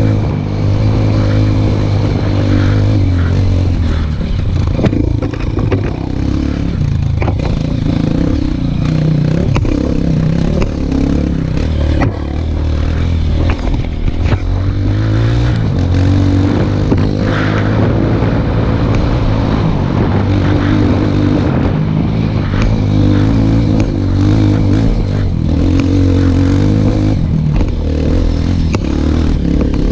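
Dirt bike engine running under load on an uphill rocky trail, its revs rising and falling throughout. Frequent short knocks and scrapes are mixed in.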